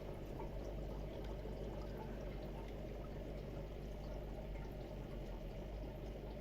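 Aquarium water circulating: a steady trickling, splashing wash of water stirred by the tank's pump, over a low electric hum.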